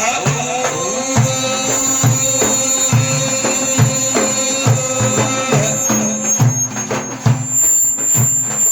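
Instrumental interlude of Middle Eastern folk music: a steady hand-drum rhythm under a long held melodic note that drops out about two-thirds of the way through.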